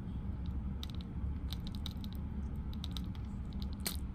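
Light metallic clicks and ticks of split ring pliers and a treble hook working against a lure's split ring as it is held open, with a sharper click near the end as the hook goes into the ring. A steady low hum runs underneath.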